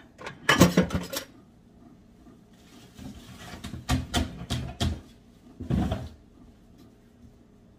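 Clatter and knocks from a white plastic dish basin being handled, coming in three bunches: just after the start, from about three to five seconds in, and once more near six seconds.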